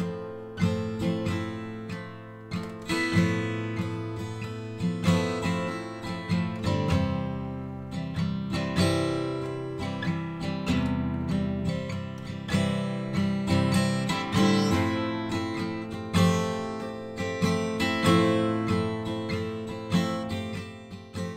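Intro music: strummed acoustic guitar with steady, regular strokes. It dies away right at the end.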